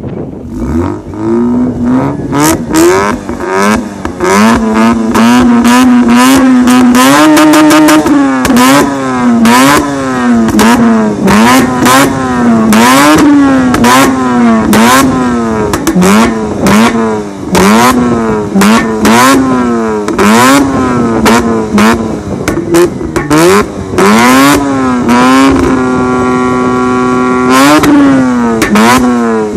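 Mazda RX-8's two-rotor Renesis rotary engine through a de-catted, straight-piped Borla exhaust, revving up and down again and again, with many loud pops and crackles as unburnt fuel ignites in the exhaust. Near the end it holds one steady high pitch for a few seconds before dropping.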